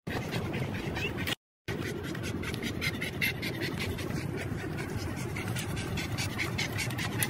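A bull terrier panting in quick, even breaths, about three or four a second, over a steady low rumble. The sound cuts out for an instant about a second and a half in.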